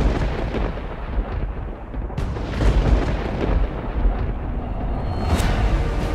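Cinematic intro sound effects: a deep, continuous rumble with heavy thunder-like booms and a sharper crash about five seconds in.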